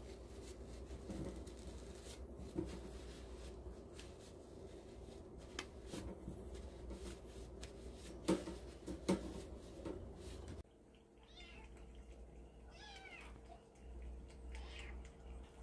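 Kittens meowing a few times in the last few seconds, with a few sharp knocks earlier on.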